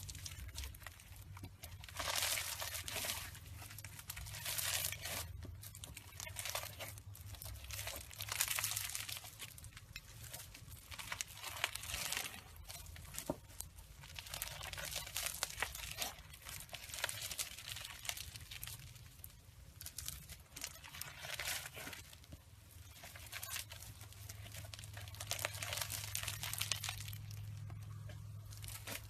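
Hands squeezing, pressing and stretching slime, making crackling, crinkly sounds in irregular bursts.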